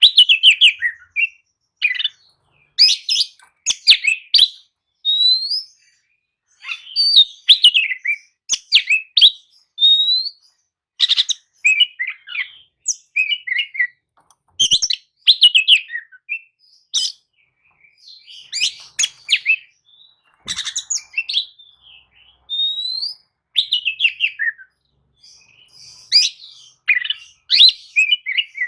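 Oriental magpie-robin (kacer) singing in short, varied phrases of clear whistles and chirps, some notes rising, with brief pauses between phrases.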